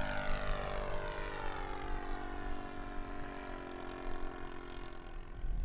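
ASP 130 engine of a radio-controlled Lazy Ace model biplane running in flight, its pitch falling as the plane flies away and then holding steady.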